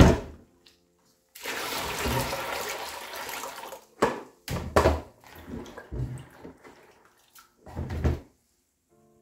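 A knock, then water rushing steadily into a plastic bowl of soaked black-eyed beans for about two seconds, followed by several short splashes and sloshes as hands rub the beans in the water to wash off the skins.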